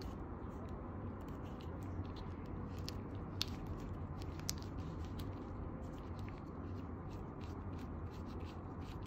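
Small sharp clicks and scrapes as latex-gloved fingers twist and work apart the plastic eyepiece barrel of a compact Bushnell binocular. The clicks come in a cluster in the middle, with a few more near the end, over a steady low hum.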